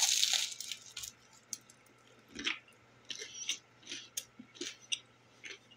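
A person biting into and chewing a slice of crusty homemade bread with a very crisp crust: a loud crackling crunch at the start, then short, irregular crunches as the crust is chewed.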